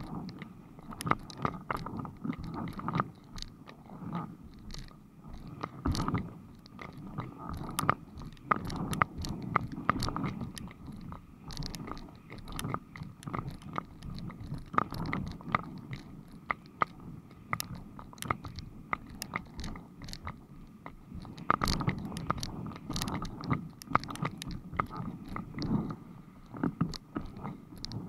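Windsurf board and rig running over light chop, heard through an action camera's waterproof case: a muffled low rumble of water and wind with many irregular clicks and knocks.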